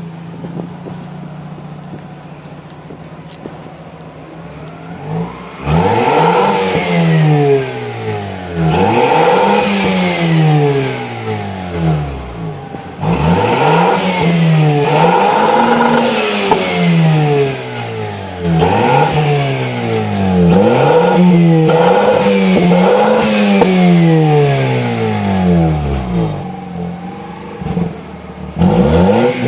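Mazda RX-8's twin-rotor Renesis rotary engine through a new cat-back exhaust. It idles steadily for about five seconds, then is revved over and over in quick throttle blips, each rising and falling in pitch. It drops back to idle near the end before one more rev.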